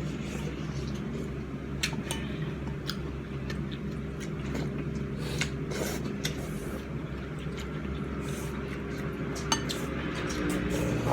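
Scattered light clinks and taps of eating utensils against a ramen bowl, over a steady low background hum.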